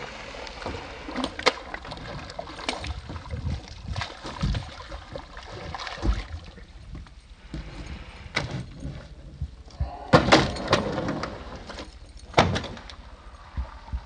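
A large redfish thrashing and flopping against a fibreglass boat's gunwale and deck, its body and tail slapping the hull in irregular thumps and knocks. The loudest slaps come in a cluster about ten seconds in and once more about twelve and a half seconds in.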